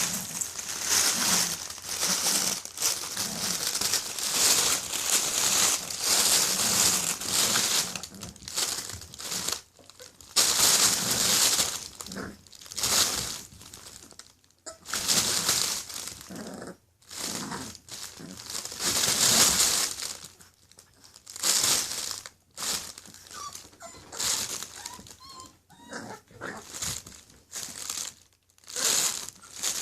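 Irregular bursts of crinkling and rustling as English bulldog puppies move about, with a few faint short squeaks late on.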